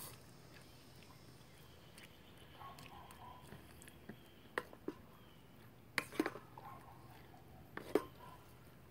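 Metal spoon stirring fried rice in a metal canteen cup, giving a few faint scrapes and short clinks against the cup, mostly in the second half.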